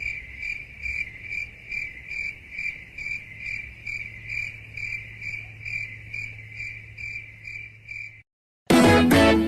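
Cricket chirping sound effect, the classic 'awkward silence' meme: a steady run of even chirps, about two a second, over a faint low hum. It stops suddenly near the end and is followed by a loud, brief burst of another sound effect.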